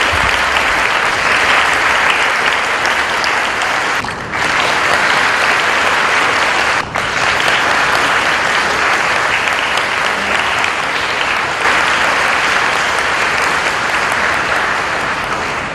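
Audience applauding steadily, with two brief dips about four and seven seconds in.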